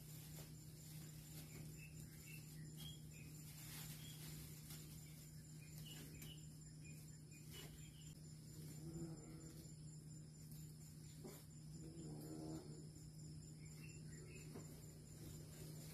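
Faint background: insects trilling steadily with a high, pulsing note over a low steady hum, and a short faint pitched sound about twelve seconds in.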